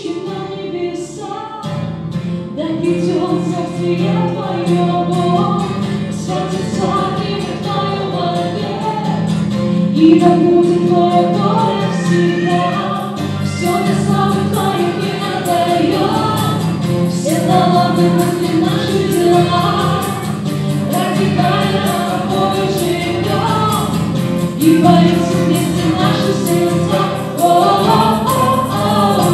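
Church worship band performing a song: a mixed group of women's and men's voices singing together over acoustic guitar and a Roland keyboard.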